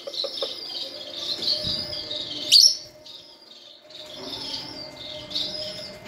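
Many small cage birds chirping and twittering. A single short, sharp sound about two and a half seconds in is the loudest moment, after which the chirping thins for a second or so before picking up again.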